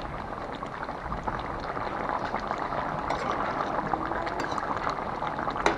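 Fish and cauliflower curry bubbling and simmering in a metal pot, a steady crackle of small bursting bubbles as it finishes cooking. A spatula in the pot gives a few light clicks against the metal in the second half.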